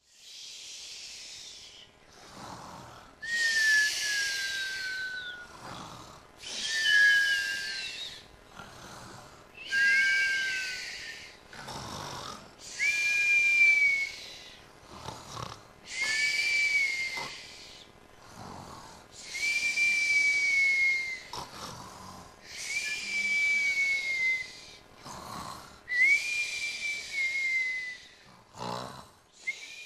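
Cartoon-style snoring: a faint low snore on each breath in, then a louder breathy hiss with a whistle falling in pitch on each breath out, repeating about every three seconds.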